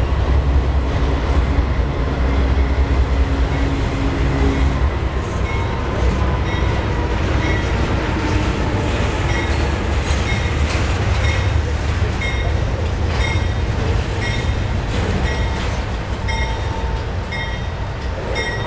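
Double-stack intermodal container cars of a long freight train rolling past at close range: a steady heavy rumble of wheels on rail. From about six seconds in, short high squeaks repeat about once a second.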